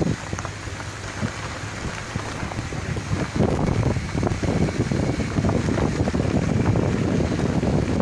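Wind buffeting a phone's microphone, a rumbling, crackling rush that grows louder about three seconds in.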